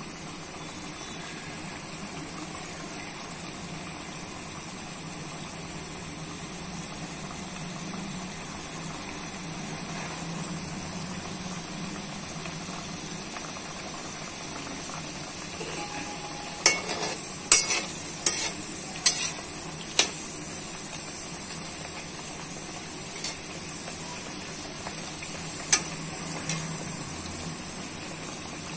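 A samak-flour puri sizzling steadily as it deep-fries in hot ghee in a metal kadhai. A little past halfway comes a quick run of sharp metal clicks and scrapes as a slotted spoon works against the pan, and there is one more click near the end.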